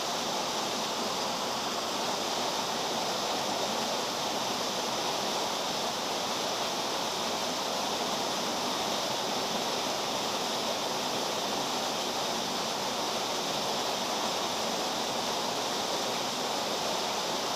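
Steady, even rush of flowing stream water.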